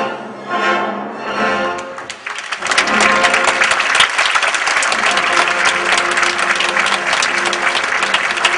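Orchestra and choir hold the closing chords of an opera, which die away about two seconds in. A large audience then breaks into sustained applause.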